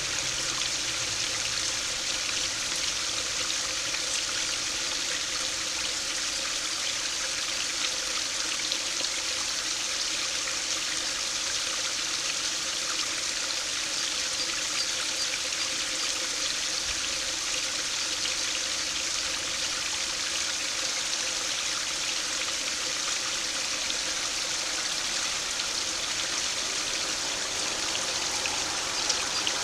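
Small stream spilling over a low weir in a thin sheet and splashing steadily into the pool below.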